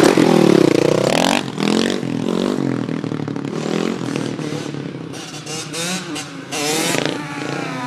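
Dirt bike engine revving hard as it passes close by, loudest in the first second and a half with its pitch swinging down and up, then revving up again near the end.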